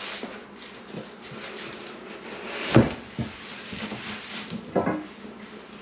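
Bubble wrap and a cardboard box rustling and crinkling as a wrapped water-filter chamber is pulled out of the box, with a louder bump about three seconds in.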